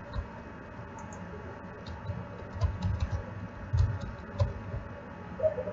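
Computer keyboard and mouse clicks in irregular little clusters, with a few heavier taps among them.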